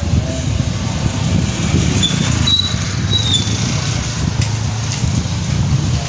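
A small motorcycle engine running close by, a steady low sound throughout, with a few short high squeaks about two to three seconds in.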